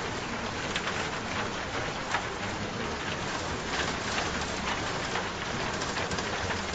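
Steady rain, with many separate drops heard as short ticks over an even hiss.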